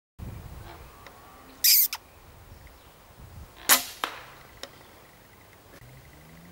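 An FAC-rated air rifle firing: one sharp crack about three and a half seconds in, followed by a few lighter clicks. Earlier, about a second and a half in, a brief loud hissing burst.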